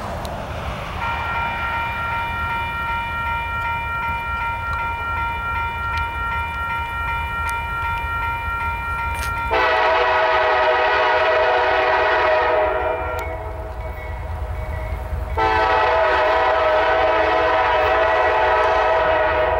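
Diesel freight locomotive horn sounding a long, steady chord that cuts off abruptly, then two louder, long blasts with a lower, fuller chord, separated by a short break. Under it runs the low rumble of the freight train rolling by.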